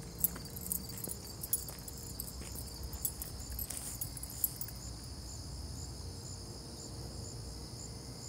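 Crickets chirping at night in a steady, high, pulsing chorus. Light clicks and taps sound over it in the first half, then stop.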